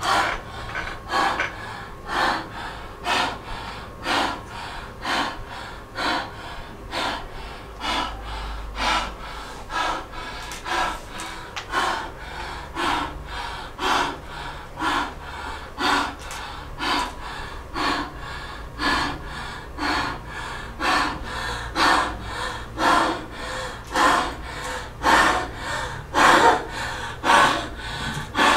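A woman's heavy, rhythmic breathing close to a microphone, gasping in and out about once a second, getting louder near the end.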